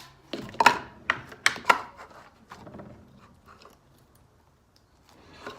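Homemade slime being squeezed and stretched in the hands, giving a quick run of sharp pops and crackles in the first two seconds, then softer handling noises. The slime has turned rubbery and elastic after contact-lens solution was kneaded in.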